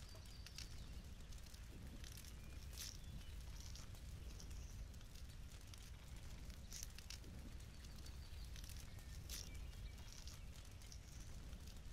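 Small kitchen knives peeling and cutting raw onions, potatoes and carrots: scattered soft scrapes and sharp clicks over a faint steady low rumble, with a few faint high chirps.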